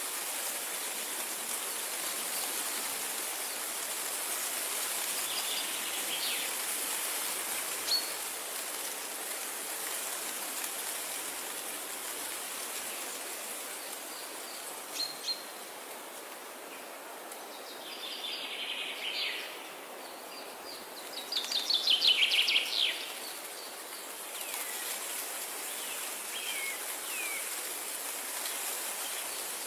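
Wild birds calling now and then over a steady rushing background noise. A loud, rapid trill of repeated notes comes about two-thirds of the way through, with a shorter burst of calls just before it.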